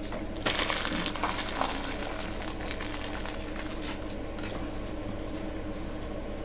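Rustling and light clicking of trading cards and plastic packaging being handled, loudest in the first couple of seconds and then thinning to scattered small clicks, over a steady low hum.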